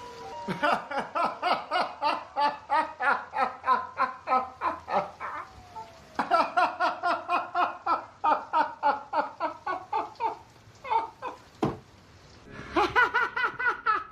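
A person laughing hard in long runs of rapid, rhythmic "ha" bursts, about four a second, with short breaks between runs.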